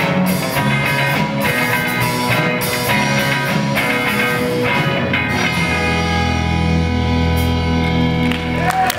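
Live rock band with electric guitars and drum kit playing the close of a song: the drum hits stop about five and a half seconds in and the band holds a final sustained chord, with a whistle from the audience just as it ends.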